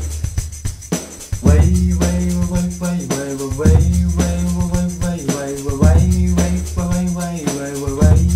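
Backing music playing: a steady beat of light percussion hits over a bass line, with chords that change about every two seconds.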